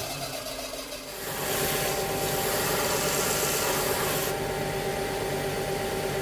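A workshop power tool's motor running while the wooden mallet head is worked against it to shape a curve. A loud rasping noise comes in about a second in and eases off at about four seconds, with the motor's hum running underneath.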